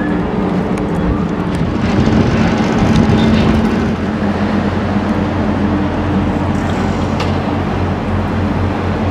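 An engine running steadily, a low hum under a wide rushing noise, swelling slightly a couple of seconds in.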